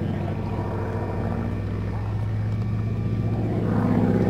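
North American AT-6 Harvard's air-cooled radial engine and two-bladed direct-drive propeller droning steadily overhead, growing louder near the end as the plane comes closer.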